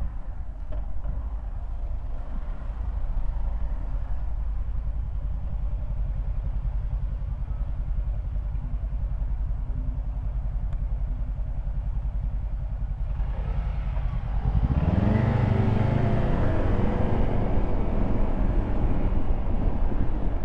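City street traffic heard from a moving bicycle: a steady low rumble, then about fourteen seconds in a motor vehicle's engine grows loud close by, its pitch rising and falling.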